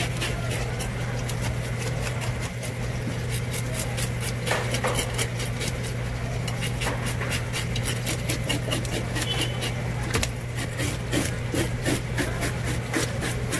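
Knife scraping the scales off a sea bass on a cutting board: a run of quick, sharp rasping strokes that come faster in the second half, over a steady low hum.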